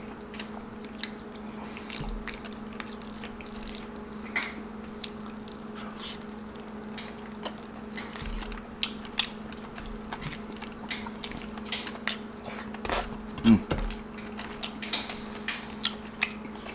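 Close-up eating sounds of beef kaldereta eaten by hand: chewing, wet lip smacks and the squish of saucy braised beef, in many short sharp clicks over a steady low hum. A brief 'mm' comes about two-thirds of the way through.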